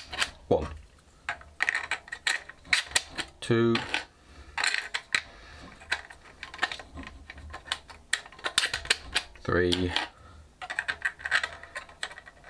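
Plastic clicking and clattering from a Nerf Firefly shotgun's magazine tube and loading gate being worked by hand, with two short rattling buzzes about three and a half and nine and a half seconds in.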